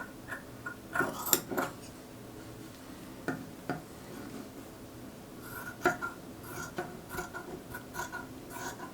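Scattered light clicks and short metallic clinks of small tools being handled at a work table, coming more often in the second half.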